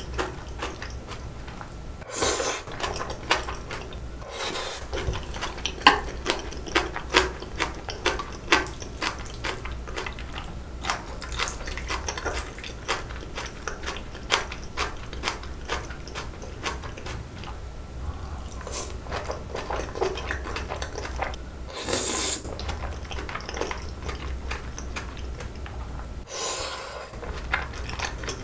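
Close-miked eating sounds: wet chewing and slurping of sauce-coated bibim noodles, with many small sticky clicks and a few longer slurps.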